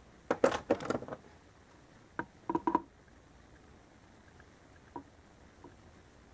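Sharp plastic clicks and knocks from handling a blush compact and brush: a quick cluster of clicks under a second in, a few more knocks around two and a half seconds in, then a couple of faint ticks.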